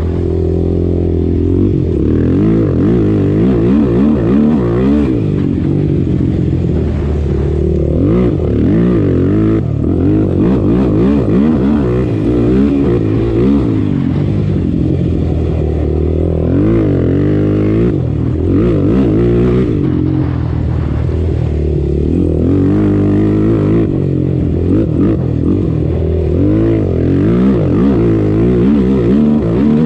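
Single-cylinder four-stroke sport quad engine running hard, revs rising and falling over and over as the throttle goes on and off through a whooped-out track.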